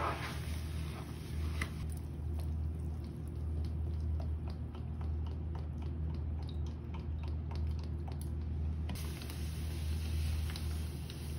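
A soaked sponge squelches briefly in a plastic basin of water, then a thin stream of liquid pours onto it with many small ticks and pops of water and bubbles. From about nine seconds in, Roma laundry powder is poured over the sponge with a soft steady hiss. A steady low hum runs underneath.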